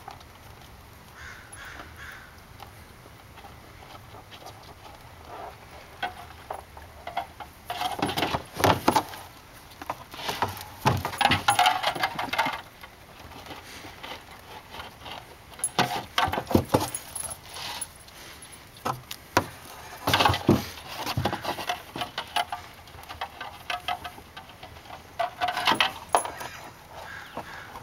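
Goat with its head inside a plastic garbage can, licking and nosing at the bottom: bursts of rattling, knocking and scraping against the plastic every few seconds, quieter in between.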